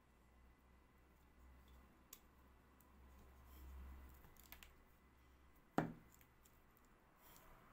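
Quiet handling of a pink silicone mould being worked off a stone-powder figurine: a few faint clicks and rubs, then one sharp knock about six seconds in as the hard casting is set down on the table.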